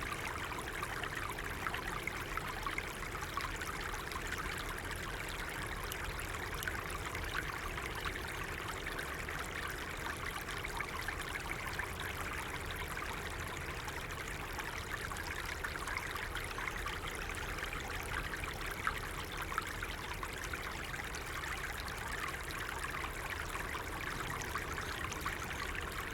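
A small stream babbling steadily, a continuous rush of flowing water.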